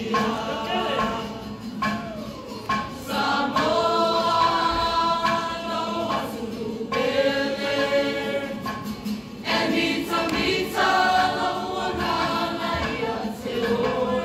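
Many voices singing a Samoan group song in chorus, live, in phrases with short breaks between them.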